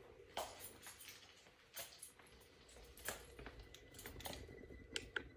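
Faint room tone with a steady low hum and a few light, scattered clicks and taps about a second apart, the sharpest near the end.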